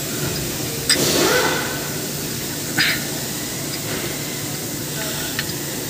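Metal clicks and a clank as a steel crankshaft locking tool is worked into place against a diesel engine's crank pulley, over a steady background hum. A short rising call sounds just after the first knock, about a second in.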